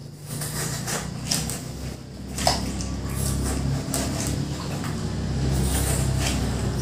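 Metal spoons scooping and scraping into the flesh of halved watermelons, with a few short sharp clicks among them over a steady low hum.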